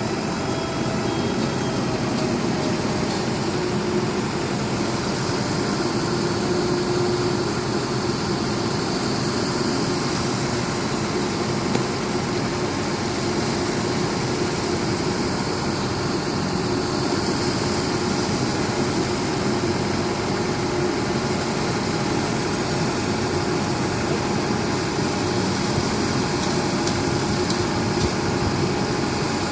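RUNSUN CMT3500 self-loading concrete mixer's 92 kW diesel engine running steadily at a constant speed.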